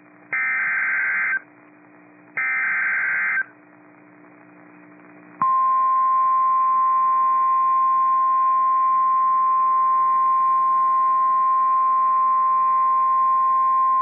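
The last two of the three EAS SAME header data bursts, each a buzzy electronic screech about a second long and a second apart. About five seconds in, the NOAA Weather Radio 1050 Hz warning alarm tone starts: a single steady tone, held without a break, that signals a severe thunderstorm warning.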